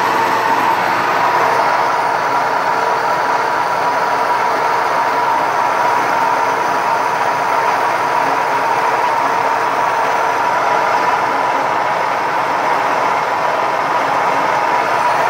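Milling machine with an end mill cutting along the torch-cut edge of a plate: a steady, loud cutting noise with a constant tone.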